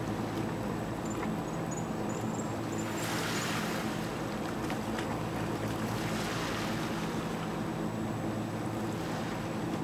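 Steady low motor drone with the wash of sea water over it; the wash swells about three seconds in, and a few faint high chirps come in the first few seconds.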